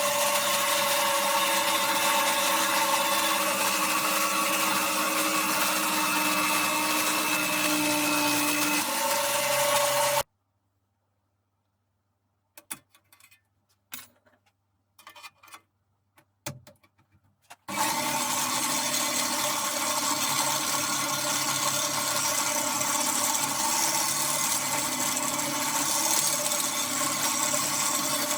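Electric jigsaw mounted in a jigsaw table, its motor running steadily with a whirring hum and a few fixed tones that dip slightly under load just before it stops. It cuts out abruptly about ten seconds in, leaving near silence with a few faint clicks and taps, then runs again from about eighteen seconds in.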